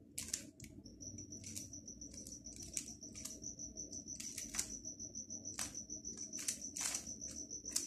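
A 3x3 speedcube being turned quickly by finger tricks through an OLL algorithm: a fast, uneven run of light plastic clicks and clacks as the layers snap round. A thin steady high-pitched whine sits behind the clicks from about a second in.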